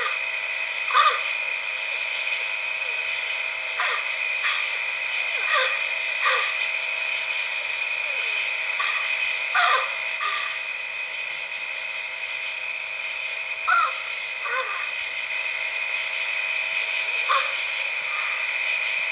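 Night-time field recording played back on a Sony M-560V microcassette recorder: a steady high night chorus with about a dozen short, irregular calls falling in pitch, which the recorder's owner takes for the creatures barking back at each other.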